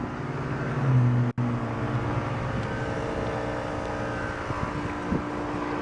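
Heil 5-ton heat pump with a Copeland scroll compressor running just after starting up in heat mode: a steady mechanical hum with several steady tones, briefly louder about a second in. The owner suspects the unit needs a new run capacitor.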